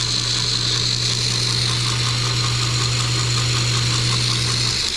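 Homemade 2x48 belt grinder running, its 1/2 hp electric motor giving a steady hum under the hiss of the moving belt. The hum drops out near the end. The builder finds the belt not quite fast enough and puts it down to too small a drive wheel.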